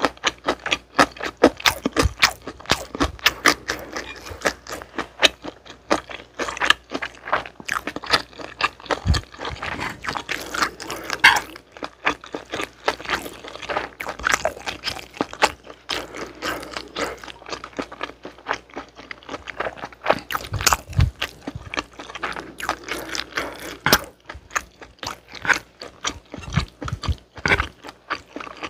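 Close-miked eating sounds: spicy jjolmyeon noodles and kimbap being chewed, a dense, irregular run of wet clicks and smacks, with a few dull low knocks.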